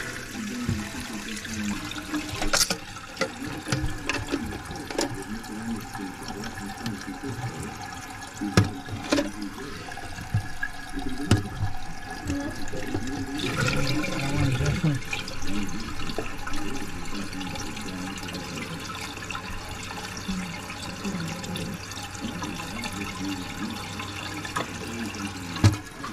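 Toilet tank refilling through a newly installed fill valve once the water supply is back on: water hissing and running into the tank, louder about halfway through. A few sharp clicks and knocks from parts in the tank being handled.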